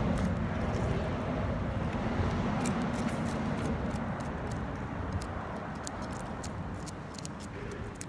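Knife scraping the scales off a snapper, heard as a run of short, irregular scratchy clicks, over a steady low rumble.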